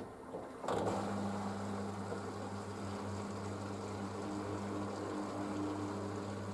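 Panasonic washing machine on its wool cycle: a motor switches on abruptly under a second in and runs on with a steady low hum and a rushing sound.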